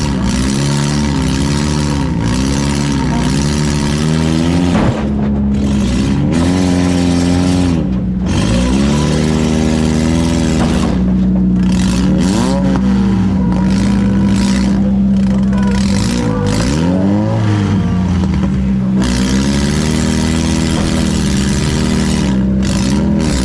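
Compact demolition derby car's engine heard from inside its stripped cabin, revving up and falling back again and again, with a longer stretch held at steady revs about midway.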